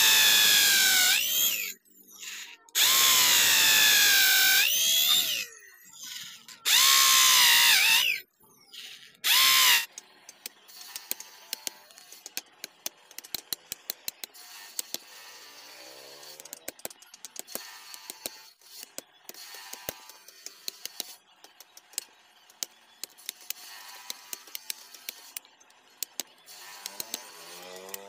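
Corded electric drill boring into a hardwood table leg in four loud bursts, its pitch dipping and recovering as the bit bites. Then, from about ten seconds in, a run of sharp irregular knocks and clicks as a chisel chops out the drilled mortise.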